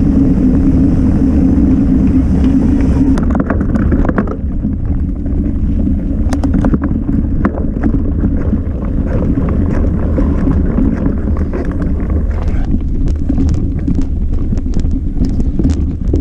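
A mountain bike being ridden: wind buffeting the on-board camera's microphone in a loud, steady rumble, with many sharp clicks and rattles of the bike over rough ground from about three seconds in.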